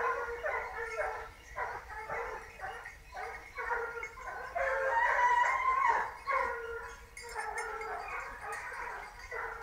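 A pack of hunting hounds baying, several voices overlapping, on the fresh trail of a wild boar. The cries are loudest around the middle.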